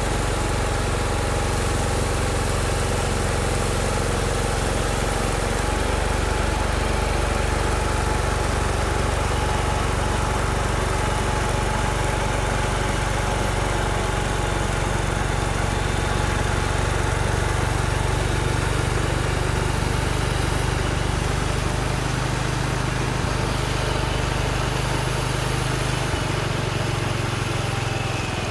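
Case 224 garden tractor engine running steadily with the snowthrower working, a constant engine drone. The engine note shifts slightly near the end.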